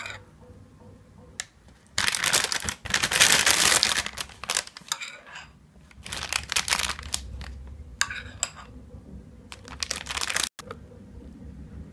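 Thin clear plastic bag crinkling as it is handled and filled, in four loud bursts; the longest, about two seconds, comes a couple of seconds in.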